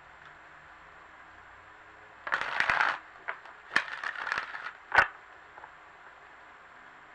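A large deck of tarot cards being riffle-shuffled by hand: a quick fluttering burst of cards, a few separate clicks, then a second shorter flutter as the cards are bridged and fall together. A single sharp snap of the cards about five seconds in is the loudest sound.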